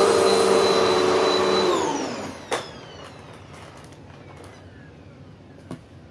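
Hoover WindTunnel MAX upright vacuum cleaner running, then switched off about two seconds in, its motor whine falling in pitch as it spins down. A sharp click follows during the spin-down and another near the end.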